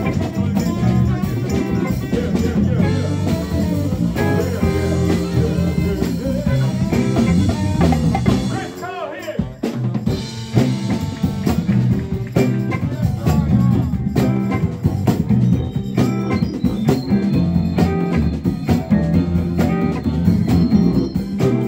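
Live band playing with congas, saxophones, electric guitar and drum kit. About nine seconds in the band drops out briefly, then comes back in at full strength.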